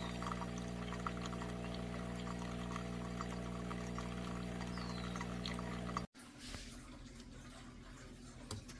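Cuisinart single-serve coffee maker brewing: a steady pump hum with hot water trickling and pouring into the cup. The sound cuts off suddenly about six seconds in, leaving faint room tone.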